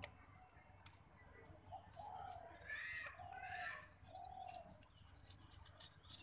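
Domestic pigeons cooing faintly: a few short coos between about two and four seconds in, with some higher chirping around the same time and a few light ticks.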